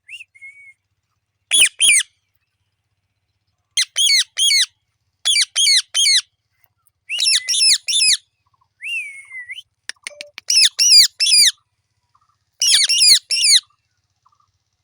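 Parrot giving loud, harsh squawks in quick runs of two to four, about seven runs with short pauses between them, and one gliding call in the middle.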